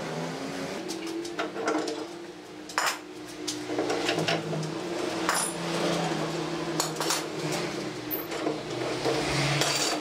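Steel pipe clamps being loosened and lifted off a wooden table frame: scattered metal clinks and knocks as the clamp jaws and pipes are handled, over a steady low hum.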